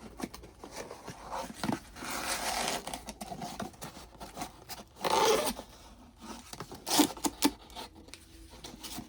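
Doll packaging being handled: rustling, scraping and crinkling in irregular bursts, with a few short clicks.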